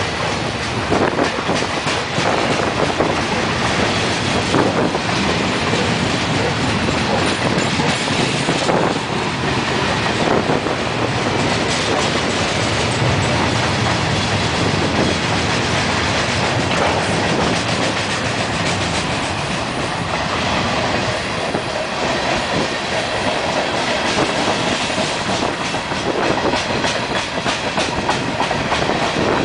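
Freight cars of a manifest train rolling past close by on a grade: steady wheel-on-rail noise with a continual clatter of clicks as the trucks cross rail joints.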